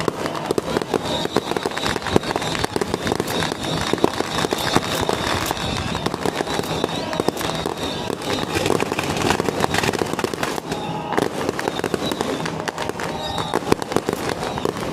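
Strings of firecrackers going off in a continuous, rapid crackle of bangs.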